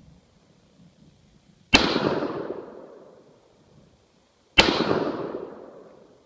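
Two rifle shots from an AK-pattern rifle, about three seconds apart, as slow aimed single fire. Each sharp report dies away over about a second and a half.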